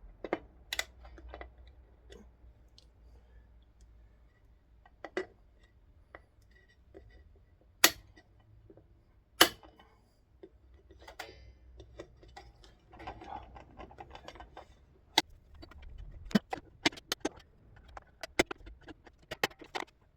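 Scattered sharp clicks, taps and knocks of hand tools and bolts on a Milwaukee cordless chop saw being reassembled, with two louder knocks near the middle.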